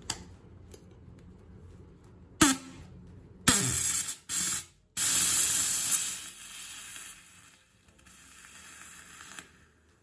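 16-gram CO2 cartridge venting through a bicycle inflator adapter as its valve is pushed open with a fork: three short spurts of hiss, then a steady hiss that weakens and stops as the cartridge empties. The expanding gas chills to about −72 °C, forming dry ice at the nozzle.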